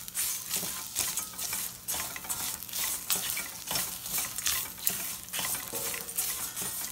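A spatula stirring fried bitter gourd slices in a stainless steel pan, with repeated scrapes and clicks against the metal over a steady sizzle.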